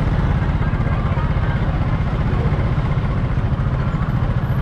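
Outdoor street-market ambience dominated by a steady low rumble with fast flutter.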